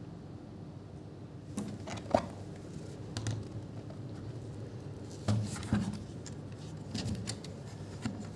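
Hands handling things close to the microphone: scattered clicks, taps and rustles in several short clusters, starting about a second and a half in, with one sharp click about two seconds in.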